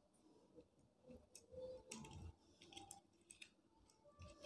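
Near silence, with faint scattered clicks and ticks from handling a wire at the screw terminals of a plastic switch board.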